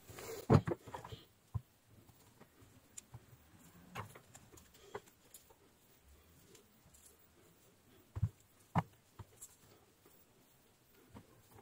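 Scattered clicks and light knocks from hand-handling small tools and a USB-C connector's metal and plastic parts on a workbench. A quick cluster of taps comes about half a second in and is the loudest, with single clicks every second or two after it and two sharper knocks about eight seconds in.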